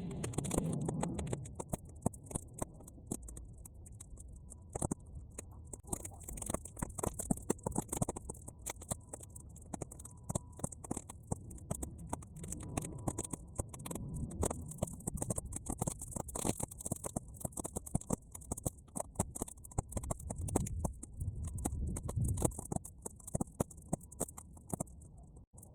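Burning half-dried weeds crackling and popping in a bonfire, a dense run of irregular sharp clicks over a low rumble and a steady high hiss, sped up to triple speed.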